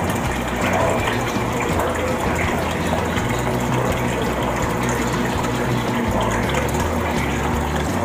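Touch tank's water pump running steadily with water flowing, an even whir over a low hum.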